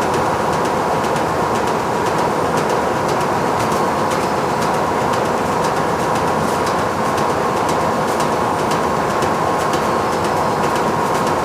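Factory machinery running steadily, with a constant mid-pitched hum over dense mechanical noise and faint, irregular ticking.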